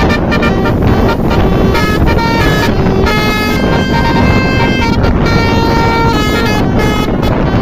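Basuri multi-tone 'telolet' bus horn playing a quick melodic run of notes, the pitch changing every fraction of a second, over a steady low rumble.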